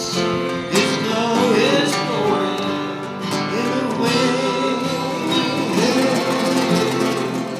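Live acoustic folk music: acoustic guitars playing with a voice singing the melody over them.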